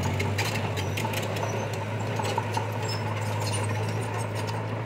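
Heavy diesel machinery engine running steadily, a constant low hum with light ticking and rattling over it.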